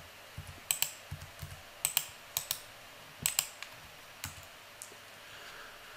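A series of sharp clicks from a computer keyboard and mouse in use, several in quick pairs, spaced irregularly.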